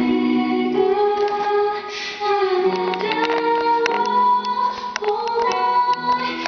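A song: a woman singing long held notes over instrumental accompaniment with plucked notes.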